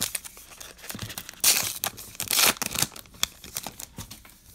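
A trading card pack's wrapper being torn open and crinkled by hand, in quick crackles with two louder rips about halfway through.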